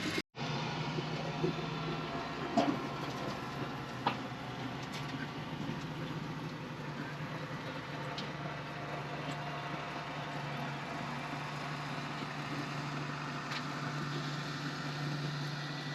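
A vehicle engine running steadily with a low hum, with a few small clicks and knocks.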